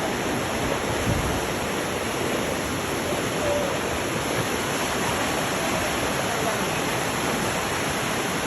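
Waterfall on a Jordan River headwater stream, a steady, even rush of falling water.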